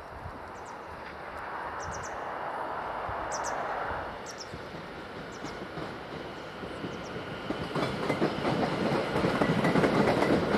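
London Overground Class 710 electric multiple unit running through the station, its running noise swelling, then louder with a steady clicking of wheels over rail joints as the carriages pass close in the last few seconds.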